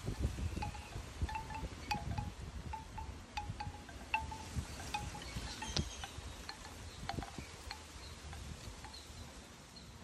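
Bamboo wind chime's tubes knocking together in the breeze: irregular hollow wooden clacks that thin out toward the end. Low wind buffeting on the microphone, strongest in the first couple of seconds.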